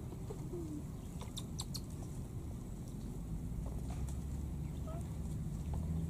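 A low steady rumble, a little stronger near the end, with a few faint short chirps, clicks and a brief low call scattered through it.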